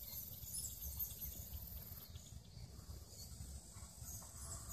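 Faint outdoor ambience: an uneven low rumble of wind or handling on the phone's microphone, with scattered faint high-pitched chirps.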